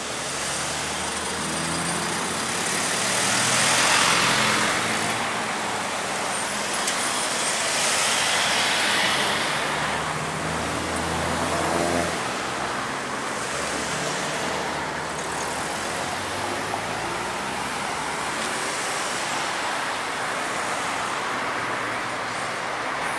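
Road traffic: cars passing along a busy road, the noise swelling as vehicles go by about four seconds in and again around eight to nine seconds, with a low engine hum near the middle.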